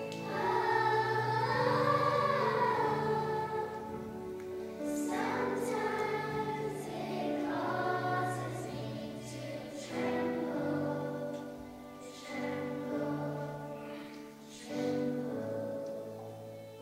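Children's choir singing in phrases, several young voices together.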